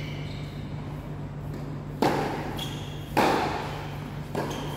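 Tennis ball being struck during a rally: three sharp pops about a second apart, from racket hits and bounces on the court.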